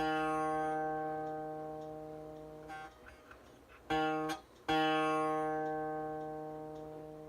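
A tanpura string plucked three times at the same pitch, each note ringing with a bright, buzzing spread of overtones from a cotton thread set under the string on the bridge (the jawari). The first and last notes ring and slowly fade; the middle one is stopped after about half a second.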